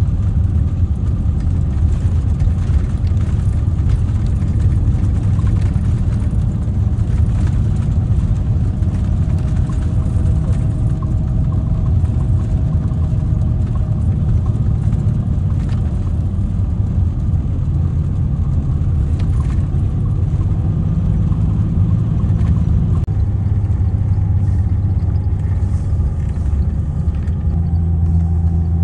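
Mercedes-Benz O-500R bus's diesel engine running under way with a steady low rumble; the engine note shifts a couple of times near the end.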